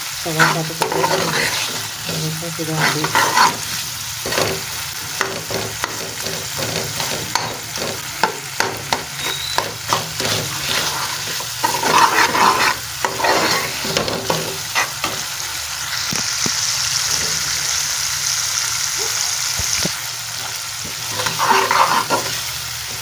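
Masala of tomatoes and green chillies frying in oil in a metal pot, sizzling steadily, while a metal spoon stirs it, scraping and clinking against the pot many times. A few bouts of heavier scraping stand out, and the sizzle gets louder and hissier for a few seconds past the middle.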